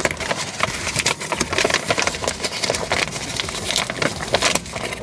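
Close rustling and clicking from something being handled near the microphone: many small irregular clicks and crackles.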